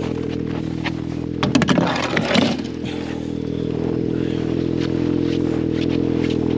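A small engine running steadily throughout, with a brief burst of sharp knocks and scraping about a second and a half in: an axe chipping at the ice of a fishing hole.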